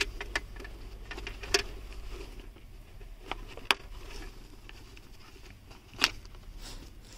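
A handful of sharp clicks and light taps from hands working the plastic parts of a motorcycle helmet and a mic cable, over a faint steady low hum.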